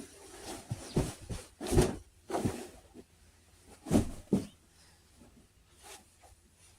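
A handful of dull knocks and rustles, as things are handled and moved about, loudest about two and four seconds in, over a low steady hum.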